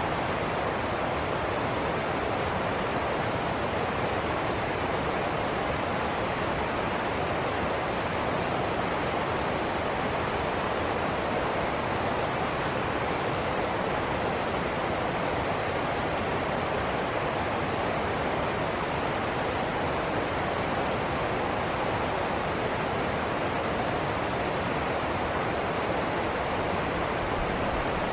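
Shallow river rushing over rocks in a small rapid: a steady, even rush of white water.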